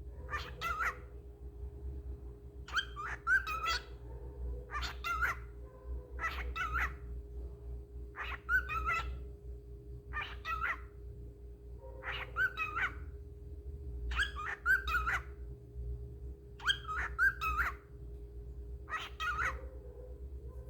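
A cockatiel repeatedly saying "what you doing" in a mimicked voice, one short phrase of two or three syllables about every two seconds, over a steady low hum.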